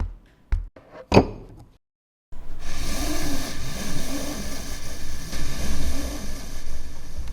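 Hand-made foley effects: a few light knocks and taps, the loudest about a second in, then a steady, noisy rumble with a wavering low undertone starting about two seconds in.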